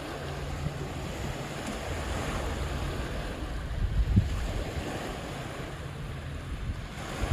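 Calm waves washing onto a shore in a steady wash, with wind buffeting the microphone in low rumbles about four seconds in and again at the end.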